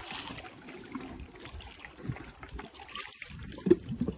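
Shallow water sloshing and trickling around a stand-up jet ski, in small irregular splashes, with one sharp knock near the end.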